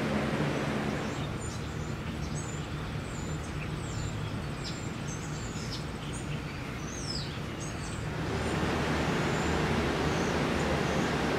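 Small birds chirping in quick, high calls over a steady low background hum. About eight seconds in the chirping stops and a louder steady noise takes over.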